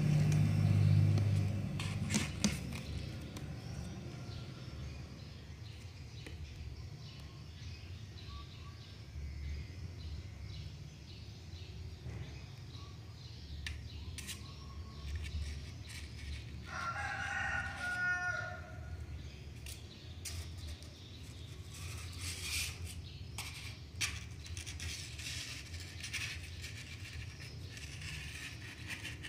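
A rooster crows once, a single call of about two seconds a little past the middle. Kittens' claws scrape and click against the sides of a cardboard box throughout.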